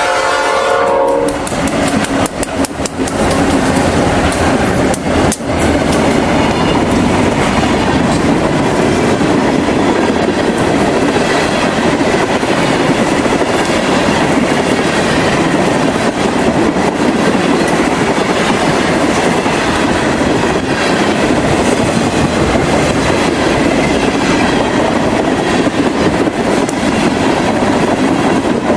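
Diesel freight train passing close by at a grade crossing. The horn of lead EMD SD40T-2 locomotive 3012 ends about a second in, and the locomotives go past. Then a long string of tank cars and covered hoppers rolls by with steady wheel and rail noise and a few knocks early on.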